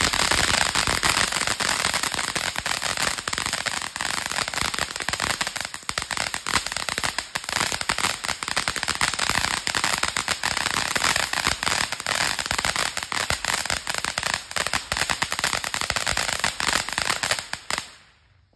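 A ground fountain firework hissing steadily with dense crackling as it sprays sparks, stopping shortly before the end.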